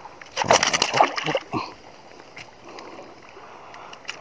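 A small hooked fish splashing and thrashing at the water's surface for about a second as it is lifted out on the line, followed by water lapping with a few faint clicks.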